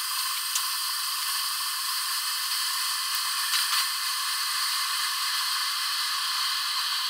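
Electric kettle heating water: a steady rushing hiss, with a couple of faint ticks.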